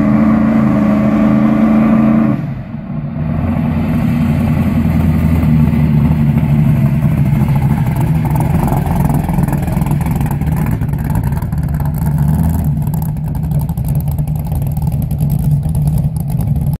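Big-block Chevrolet V8 with a roller cam in a 1975 Camaro, held at a raised, steady rev for about two seconds, then dropping back to a lower, lumpy, rough-running note as the car rolls past close by.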